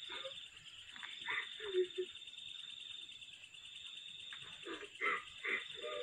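Crickets trilling steadily, with a few short, faint voice sounds in between.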